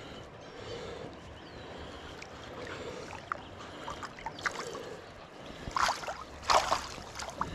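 Water lapping quietly against a kayak. Near the end a trout thrashes in a landing net held in the water, splashing loudly twice.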